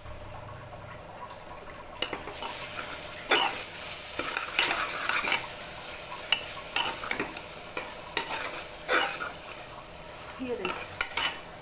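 Sliced onions with ginger, garlic and green chilli sizzling in oil in a pressure cooker being sautéed, stirred with a metal ladle. From about two seconds in the ladle scrapes and knocks irregularly against the pot over the steady sizzle.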